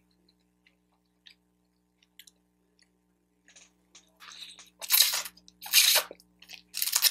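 Close-miked mouth sounds of eating lo mein noodles: a few faint clicks, then from about halfway through loud slurping and chewing as a forkful of noodles is drawn into the mouth, three loud slurps standing out.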